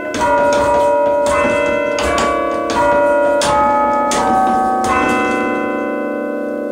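A chime of church tower bells played by hand from a lever chime stand: a slow tune, one bell struck at a time, each note ringing on under the next.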